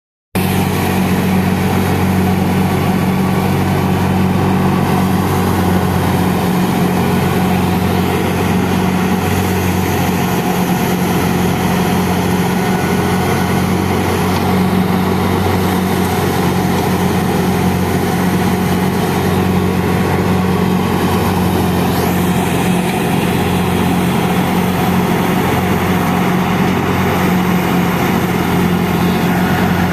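Fiat 640 diesel tractor running steadily under load, driving a wheat thresher as bundles of wheat are fed into it; engine and threshing drum make one constant, even machine noise.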